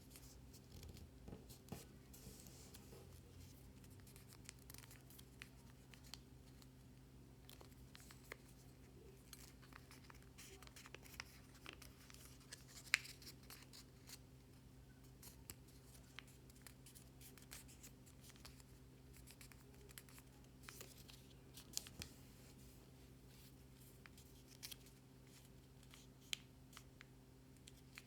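Sheet of origami paper being folded and creased by hand: soft rustles and many small crisp ticks, faint over a steady low electrical hum.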